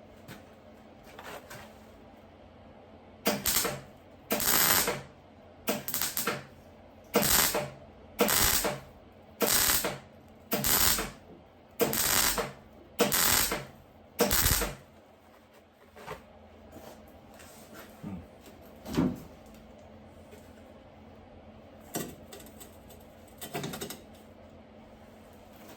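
Welder laying a row of short stitch welds on car-body sheet metal: about ten crackling bursts, each half a second to a second long, about one a second. A few fainter single crackles follow near the end.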